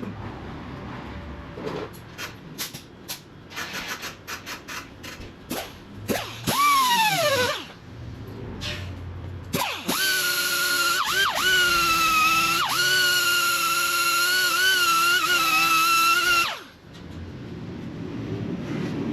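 A handheld power tool is triggered in several short blips and then spins down with a falling whine. After that it runs steadily for about six seconds as a high whine, dipping briefly now and then as it bites into the work, and then cuts off.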